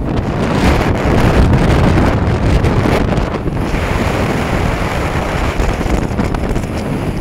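Strong gusting wind buffeting the microphone, over the rush of a rough sea breaking on rocks.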